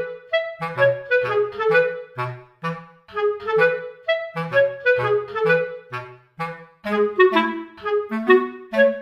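Background music: an instrumental tune of short, separated notes with a lower bass line beneath.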